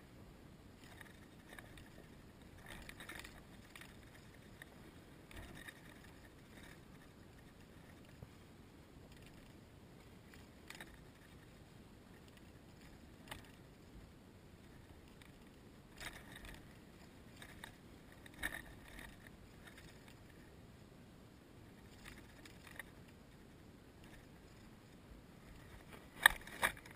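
Faint outdoor background with scattered short, soft rustles. Near the end, two louder footfalls in grass close by.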